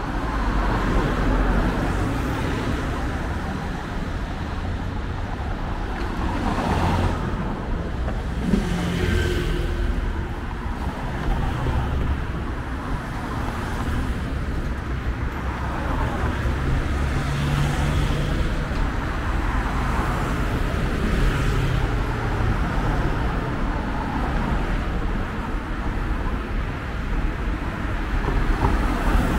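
City road traffic: cars driving past one after another on the street alongside, a continuous rumble of engines and tyres that swells now and then as a car goes by.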